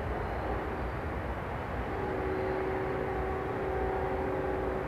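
Distant engine drone: a steady low rumble, with a faint steady hum joining it about two seconds in.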